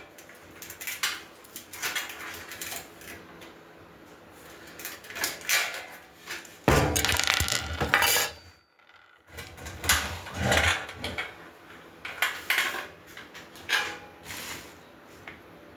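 Metal grill parts and hardware clinking and clanking as they are handled during assembly, in scattered knocks, with a longer, louder stretch of rattling about seven seconds in that cuts off abruptly.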